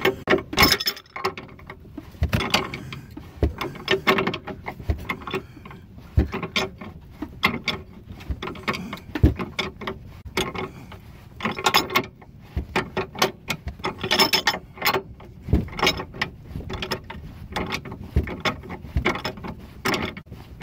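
Pipe wrench turning out a seized lower control arm bolt on a Honda Accord a partial turn at a time: irregular metallic clicks and creaks about once a second as the wrench bites, swings and is reset.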